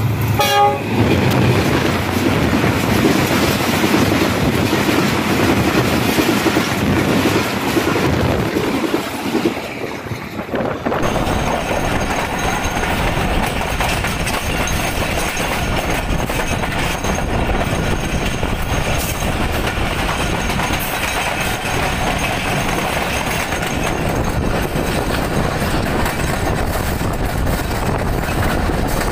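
A Pakistan Railways diesel locomotive approaches with a short horn blast at the very start, its engine and wheels rumbling loudly as it draws near. About 11 seconds in the sound changes to the steady rolling noise and clickety-clack of the moving passenger train, heard from an open coach window.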